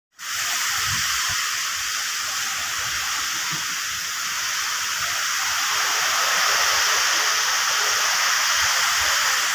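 Steady rain falling in a storm, a dense even hiss.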